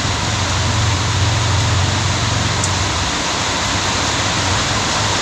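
Heavy rain falling steadily, an even hiss with a low hum beneath it.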